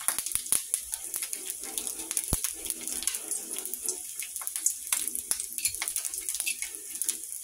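Bacon sizzling in hot grease in a cast iron pan, a steady hiss broken by many sharp crackles and pops of spitting fat.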